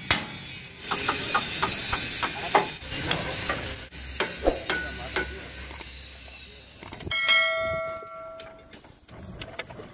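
Hammer blows on steel truck suspension parts, a string of metal knocks in the first few seconds. About seven seconds in, a struck piece of steel rings out with a bell-like tone that fades over about a second.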